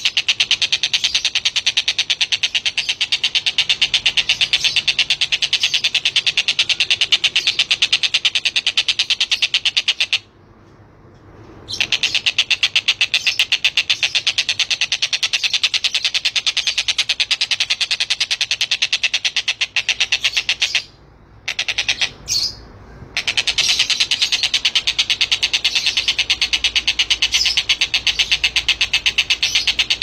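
Javan kingfisher (tengkek buto) calling a long, very fast, even rattling trill. It breaks off for about a second and a half about ten seconds in, and twice more briefly a little past the twenty-second mark.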